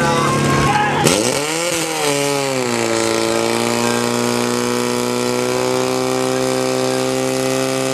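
Portable fire pump engine revving hard about a second in, dipping briefly and then holding a steady high-revving note as it drives water into the hose lines.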